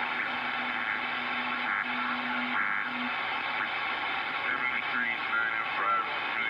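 CB radio receiver static: steady hiss with a low steady tone that breaks off about three seconds in and briefly comes back, then warbling, garbled signal fragments over the hiss near the end.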